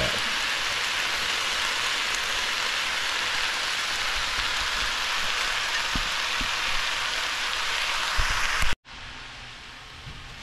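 Sliced cabbage and carrots sizzling in a hot wok, a steady hiss. It cuts off abruptly near the end and comes back as a fainter sizzle.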